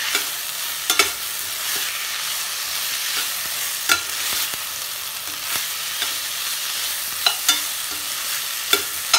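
Chicken, onion and green pepper sizzling in a stainless steel pan as they are stir-fried, with a metal spatula scraping and clicking sharply against the pan a handful of times.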